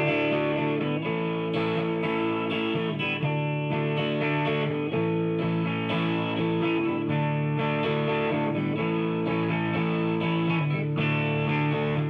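Background music: guitar-led instrumental with sustained chords.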